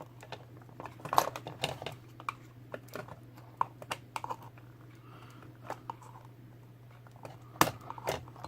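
Small plastic and metal parts of a dismantled Bluetooth alarm-clock speaker clicking, tapping and knocking as they are handled on a bench, with a sharper knock about a second in and another near the end, over a steady low hum.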